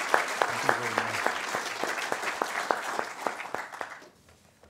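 Audience applauding, many hands clapping together. The clapping thins out and dies away about four seconds in.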